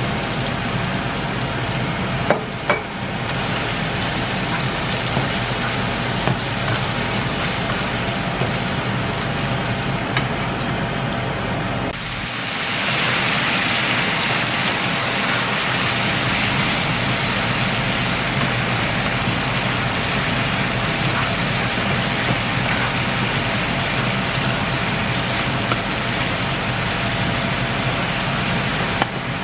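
Chopped ginger, garlic, green onion and star anise sizzling in hot oil and caramelized rock sugar in a frying pan, stirred with a spatula, with a couple of light knocks about two seconds in. About twelve seconds in, pieces of boiled pork intestine go into the pan and the sizzle grows louder and brighter.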